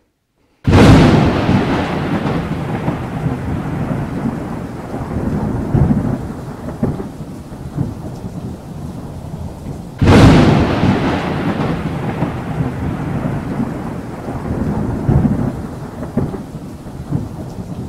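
Thunderstorm: a sudden thunderclap about a second in, then a long rolling rumble with rain. A second clap about ten seconds in, fading the same way.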